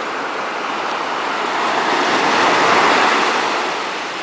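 Sea surf breaking on the shore: one wave's rush swells up, peaks about two-thirds of the way through, then eases off as it washes in.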